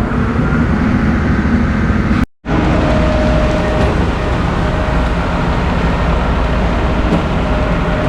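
Heavy diesel truck engines at a concrete pump setup, running steadily and loudly while concrete is pumped. The sound drops out briefly a little over two seconds in.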